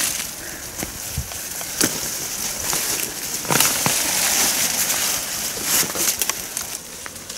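Leafy eggplant plants rustling and crackling as they are pulled up by the roots, with sharp snaps of stems, loudest in the middle.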